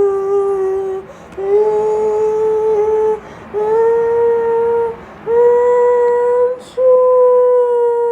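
A dog howling: a run of long, steady howls with short breaks between them, each pitched a little higher than the last. The final howl is still going at the end.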